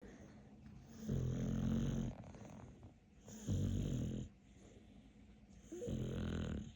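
A dog snoring: three long, low snores about two and a half seconds apart, each lasting about a second, with quieter breathing between them.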